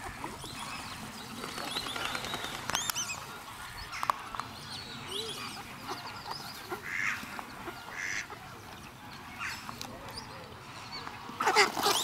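Black swans and ducks calling, many short calls scattered throughout, with a louder splash of water and a flurry of calls near the end.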